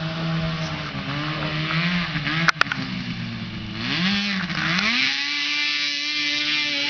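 Modified Arctic Cat snowmobile's two-stroke engine running with a wavering pitch, then revving up about four seconds in and holding a steady higher pitch during a warm-up run. A sharp click about two and a half seconds in.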